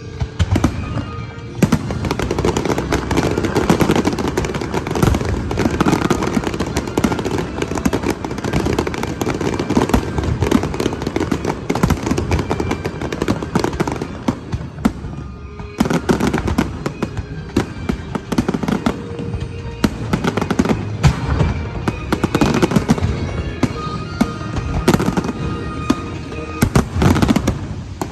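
Aerial fireworks display: a dense barrage of bursting shells and crackle, easing briefly about halfway and then picking up again, with music playing underneath.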